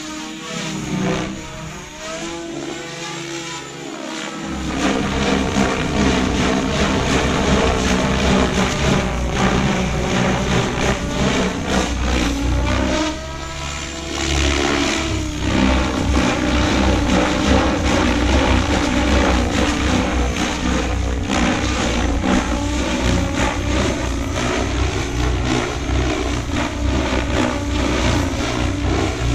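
SAB Goblin 630 electric RC helicopter flying freestyle aerobatics with its main rotor at about 2,000 RPM: rotor blade whir and motor whine that glide up and down in pitch as it maneuvers, getting louder about four seconds in.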